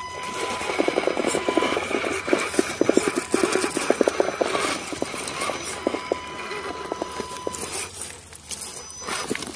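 Redcat Gen8 RC rock crawler clattering over rock and roots: quick irregular knocks and rattles from its tires, axles and body as it climbs, thickest in the first half.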